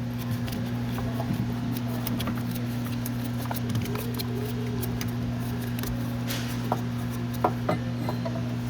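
Steady low hum with a few light clicks and knocks, most of them near the end.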